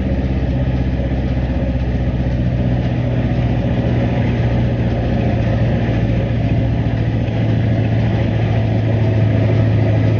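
Vehicle engine running steadily, a continuous low hum with road noise, growing a little louder near the end.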